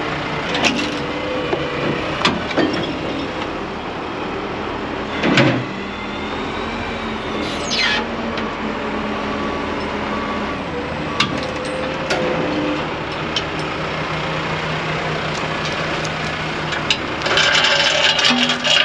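Diesel engine of a Gradall telehandler running steadily as it lifts a dump truck on chains, with scattered metal clanks and knocks from the chains and rigging. A denser noisy burst comes near the end.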